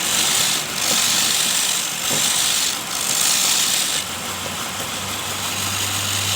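Homemade electric-motor wood lathe at work: a chisel scrapes the spinning wood in four strokes, then lifts off about four seconds in, leaving the motor's steady hum.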